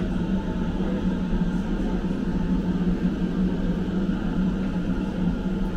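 Steady hum inside an electric train car standing with its onboard systems running, with a constant low tone over an even rumble, like the car's ventilation and power equipment.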